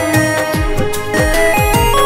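Instrumental break of a Bhojpuri pop song: an electronic beat of deep bass hits that drop in pitch, several a second, under a keyboard melody.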